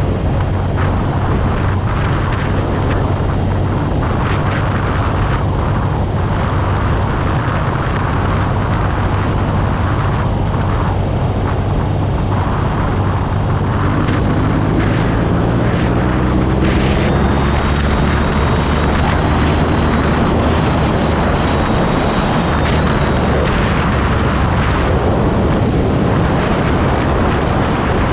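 BMW R nineT Urban G/S's air/oil-cooled boxer twin running under way, buried in heavy wind rush on the microphone. About halfway through, the engine pitch climbs steadily as the bike accelerates.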